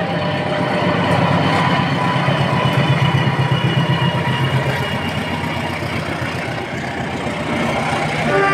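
Diesel-electric locomotive running loudly as it passes close by hauling a passenger train, its engine pulsing under the rumble of the wheels on the rails. A multi-tone locomotive horn starts sounding right at the end.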